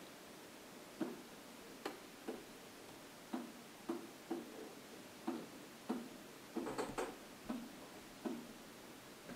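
A pen tip tapping and knocking against an interactive whiteboard's hard surface as words are handwritten: about a dozen irregular hollow taps, with a quick run of them about two-thirds of the way through.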